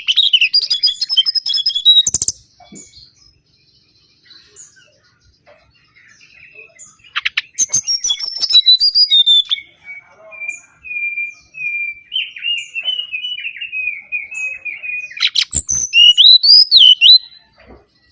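Mangrove whistler (kancilan bakau) singing in loud phrases of quick chirps and whistles with short pauses between them. In the middle comes a long run of quick notes held at one pitch, and near the end a loud phrase of whistles that rise and fall.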